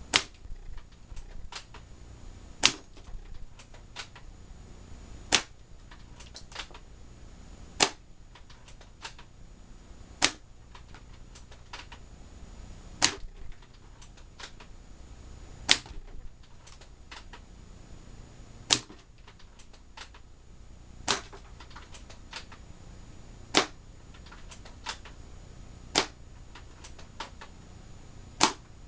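UTG L96 spring-powered bolt-action airsoft sniper rifle firing about a dozen shots, one every two and a half seconds or so, each a single sharp crack, with lighter clicks between shots as the bolt is cycled.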